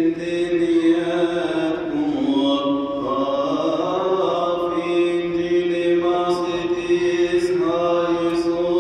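A Coptic monk's male voice chanting a Coptic liturgical hymn into a microphone, in long held notes with slow melodic turns that dip and rise in pitch.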